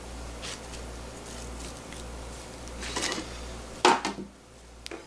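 Soft rustling and light ticks of fried nurungji (scorched rice crisps) being handled and stacked on a plate, then a sharp clatter a little before four seconds in as the metal tray is taken hold of.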